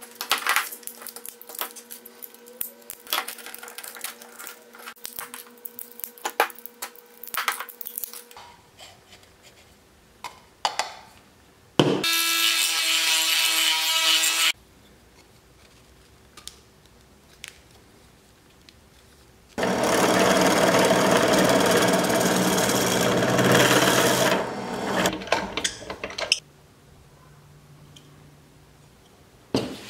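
Hard plastic 3D-printed parts clicking and scraping as they are handled and cleaned up. Then a rotary tool with a sanding drum sands a black PLA print in two runs, a short one of about two seconds and a longer one of about five seconds, each starting and stopping abruptly.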